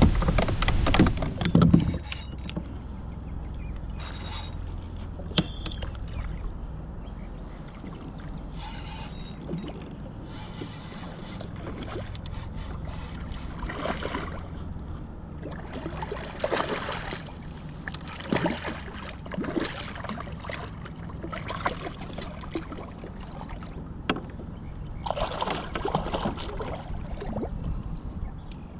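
Water splashing and sloshing in short, irregular bursts as a hooked red drum is fought on a bent spinning rod, over a steady low rumble of wind on the microphone.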